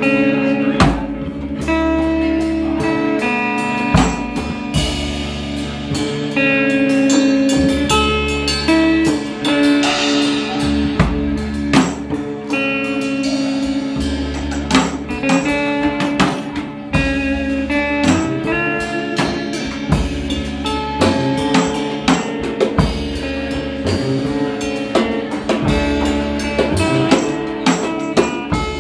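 A band playing live, with guitar and drum kit.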